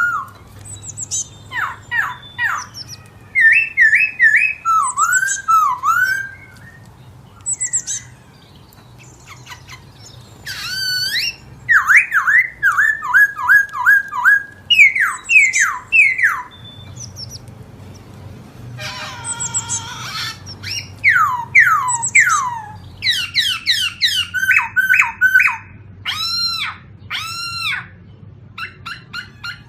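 Songbirds singing: phrases of clear whistled notes, many given as quick runs of four to six down-slurred notes, separated by short pauses, with a harsher buzzy call about two thirds of the way through.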